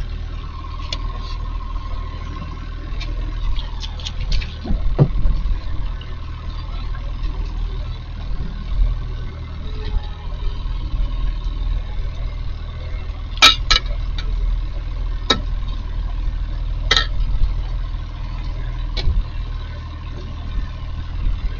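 Boat engine running steadily at idle: a low, even hum with a faint steady whine above it, and a few scattered short knocks.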